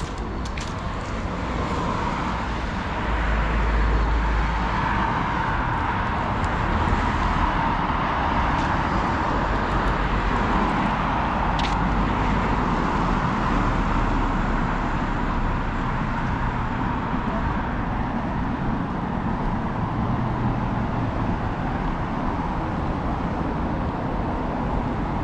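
Steady city road traffic noise, growing louder about three seconds in, with a single sharp click near the middle.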